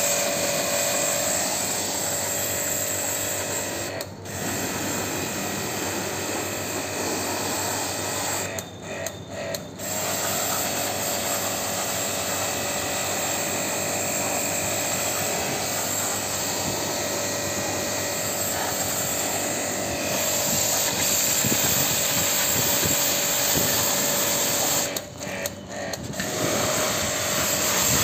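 High-pressure jet washer running, a steady motor whine with water spray hissing onto a split-AC cross-flow blower wheel. The sound dips briefly about four seconds in, a few times around nine seconds, and twice around twenty-five seconds.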